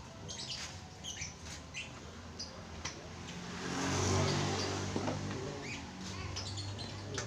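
Small birds chirping in short, scattered calls, with a low hum and rushing noise that swells and fades around the middle.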